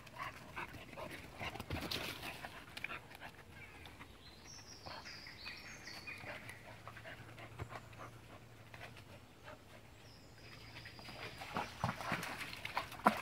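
Springer spaniels panting and scuffling about, with scattered rustles and paw steps on soil and dead leaves; the rustling grows busier and louder near the end.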